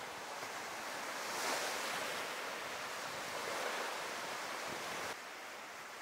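Small sea waves breaking and washing up on a sandy beach: a steady hiss of surf that swells twice, about a second and a half in and again a little past three seconds, as waves wash in. The hiss drops a little about five seconds in.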